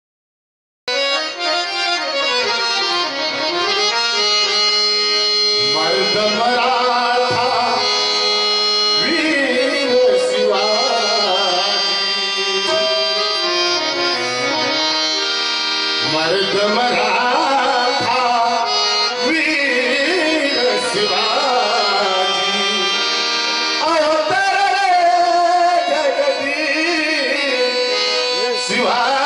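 Devotional bhajan music: a harmonium plays a melody over hand-drum accompaniment, starting about a second in.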